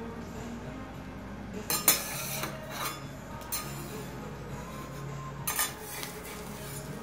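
Metal spatula knocking and scraping on a steel teppan griddle: a loud clink about two seconds in, a few lighter knocks after, and a pair of scrapes near the end as the spatula slides under the bread.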